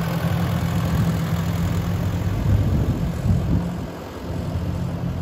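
Vintage Ford farm tractor engine running steadily as the tractor drives off down a dirt lane, dipping a little about four seconds in as it pulls away.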